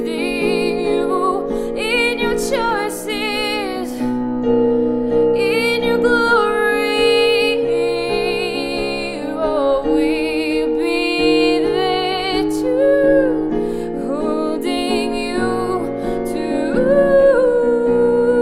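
Woman singing long held notes with vibrato over a soft acoustic accompaniment of sustained chords.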